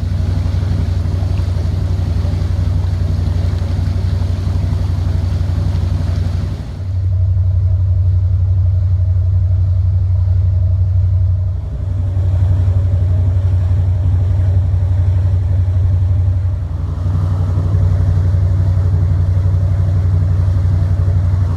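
Motor vessel's engine running steadily under way at a slow cruise, a low drone with brief dips a few times.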